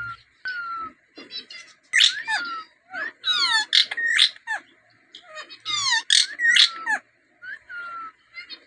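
Rose-ringed parakeet calling: a run of short whistles and sharp calls that fall in pitch, the loudest coming about two, four and six seconds in.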